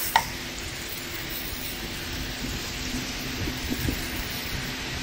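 Aerosol cleaner sprayed in a steady hissing jet onto the engine block, the liquid spattering on the oily metal of the water pump mounting face as it is cleaned. A short sharp squeak right at the start.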